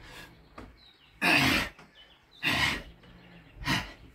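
A man breathing hard from burpees, out of breath: three loud, harsh breaths about a second and a quarter apart.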